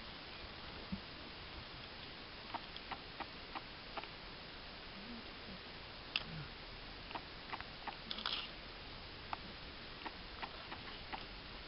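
Steady faint hiss broken by about a dozen small sharp clicks and ticks, spread irregularly with a short cluster about eight seconds in, and a couple of faint short low sounds near the middle.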